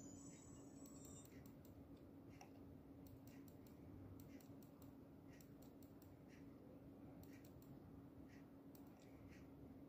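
Near silence: faint, irregular computer-mouse clicks over a low steady hum, with a faint high tone in the first second or so.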